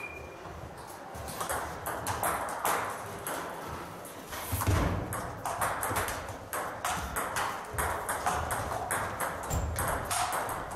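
Table tennis rallies: the celluloid ball clicking off paddles and bouncing on the table in a quick, irregular series of light knocks, with a few dull thumps mixed in.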